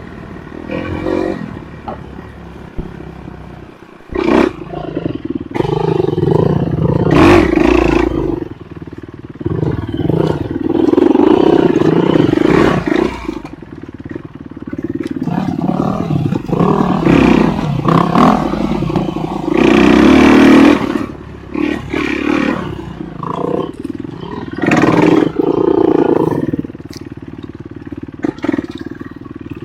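Off-road enduro motorcycle engine revving up and easing off in repeated surges, with a few sharp knocks in between.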